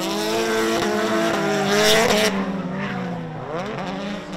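Drift cars sliding in tandem: engines held at high revs with wavering pitch over tyre squeal. The tyre hiss cuts off abruptly about halfway through, leaving the engines, which dip and then climb in pitch again near the end.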